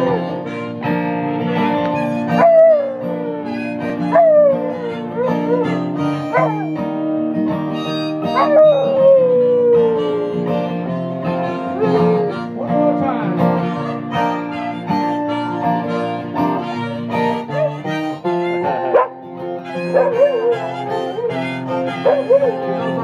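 A dog howling along to a harmonica: a series of long howls, each sliding down in pitch, the longest about eight seconds in, over steady harmonica chords, with shorter wavering howls near the end.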